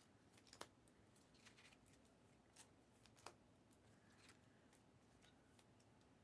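Faint scattered clicks and light rustles of trading cards being handled, the sharpest about half a second in and again just past three seconds, over near-silent room tone.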